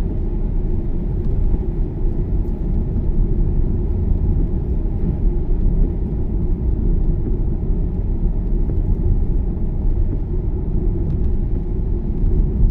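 Steady low rumble of a car driving, heard from inside the cabin: engine and tyres running on a wet road.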